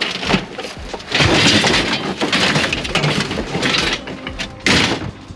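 Wood cracking and splintering as it is broken apart. A dense stretch of crackling runs through the middle, and there is one sharp loud crack near the end.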